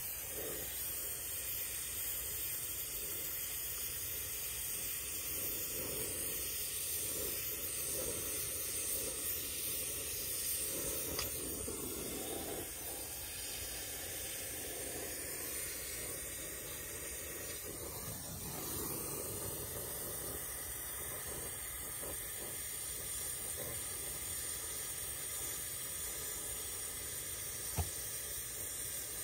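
Steady hiss of a brazing torch flame burning, with a single sharp click near the end.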